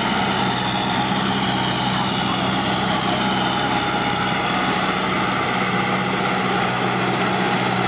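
Farm tractor's diesel engine running at a steady low hum while pulling a rotary tiller through flooded rice-paddy mud.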